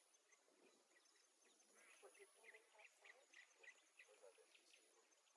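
Near silence, with faint short chirps.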